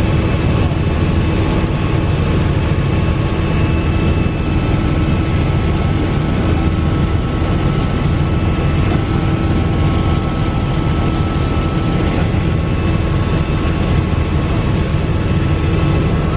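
Helicopter cabin noise in flight, heard from inside the cabin: a loud, steady rumble of engine and rotor with a thin steady whine on top.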